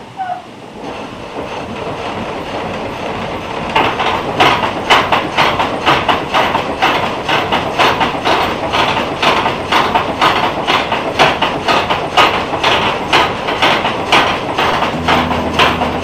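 Water-powered up-and-down sawmill running: the reciprocating saw frame clatters in an even rhythm of about two strokes a second, growing louder about four seconds in.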